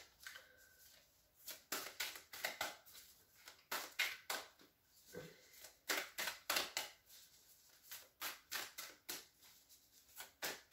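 A deck of tarot cards being shuffled by hand: quick, crisp card strokes in irregular runs of several a second, with short pauses between the runs.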